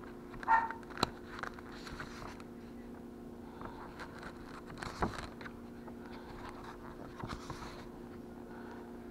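Glossy pages of a recipe booklet being turned and handled: several short paper rustles and swishes, with a sharp click about a second in. A short pitched blip just before the click is the loudest moment, and a steady low hum runs underneath.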